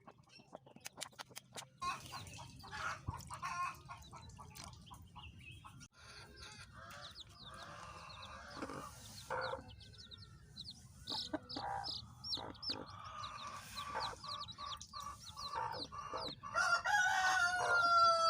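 Chickens clucking and calling, with a rooster crowing loudly near the end.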